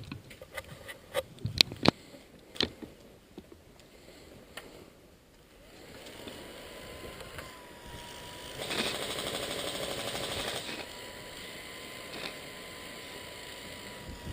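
Scattered clicks and knocks, then an electric airsoft gun firing a rapid full-auto burst of about two seconds, with a steady faint hum under it.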